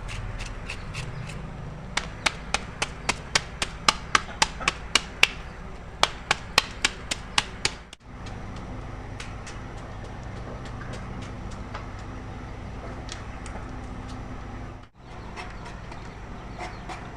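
A knife chopping on a cutting board: a quick, even run of sharp strikes, about three to four a second, starting about two seconds in and stopping just before the middle, then only a few scattered knocks.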